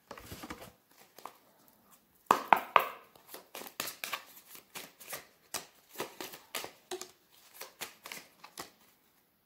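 A deck of tarot cards being shuffled by hand: a few soft card clicks at the start, then from about two seconds in a long run of quick, irregular card slaps and flicks.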